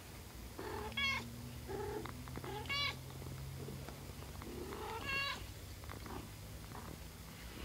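Day-old kittens giving three short, high-pitched mews about two seconds apart, over the mother cat's steady low purring.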